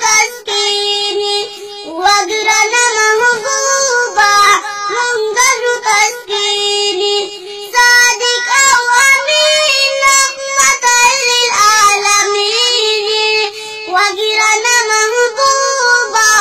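A young boy singing a Pashto religious chant (nazam) in a high voice, melodic phrases following one another.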